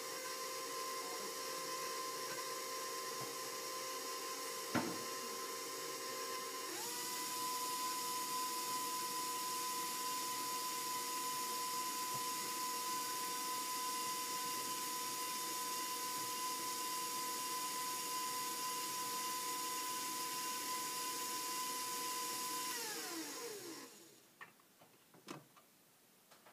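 Electric mixer beating banana bread batter: a steady motor whine that steps up in speed and loudness about seven seconds in, then winds down with a falling whine and stops near the end. A single sharp knock about five seconds in.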